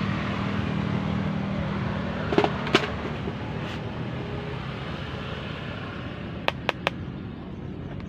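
Steady low hum and noise with a few sharp clicks or pops: two about two and a half seconds in, then three in quick succession near the end.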